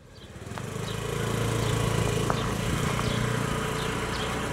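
Small motor scooter engine running steadily as the scooter rides off, fading in over the first second or so.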